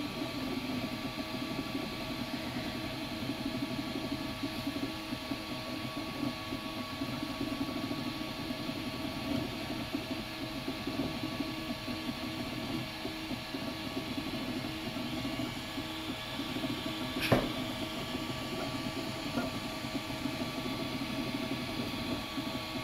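Ultimaker 2+ 3D printer running as it prints, its stepper motors giving a steady whine of several held tones over a fluttering hum. A single sharp click sounds about three-quarters of the way through.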